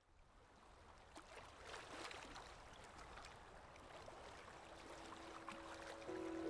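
A faint, water-like rushing noise with scattered crackles fades in and slowly grows louder. Held music notes come in near the end.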